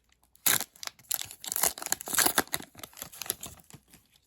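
Foil trading-card pack being torn open and crinkled by hand, in irregular crackling bursts.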